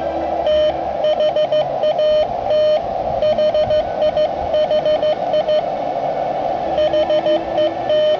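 Morse code (CW) from a portable amateur radio transceiver: a single tone keyed in dots and dashes over steady receiver hiss, with pauses where only the hiss is heard.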